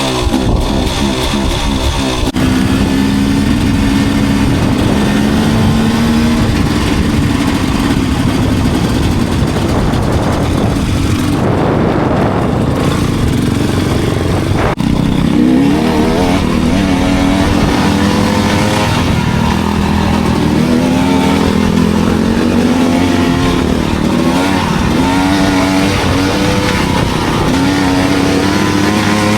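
Enduro dirt bike engine running steadily, its pitch rising and falling repeatedly with the throttle, more often in the second half.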